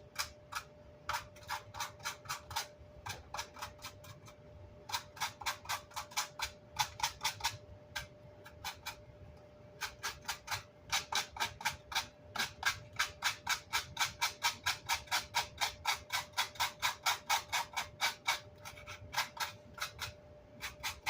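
Rapid brushing or scraping strokes on speaker grill cloth, about three a second in runs separated by short pauses, working wood remnants and glue residue off the cloth.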